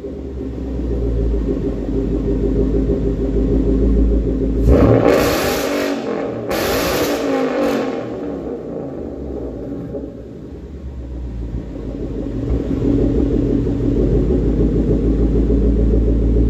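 2014 Ford Mustang GT's 5.0 Coyote V8 through a Roush X-pipe exhaust, idling with a low rumble. About five seconds in it is revved twice in quick succession, the pitch falling back afterwards. It builds louder again in the second half.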